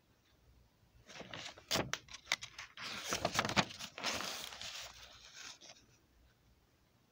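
A paper picture-book page being turned by hand: rustling and crinkling with several sharp crackles, starting about a second in and dying away a second or so before the end.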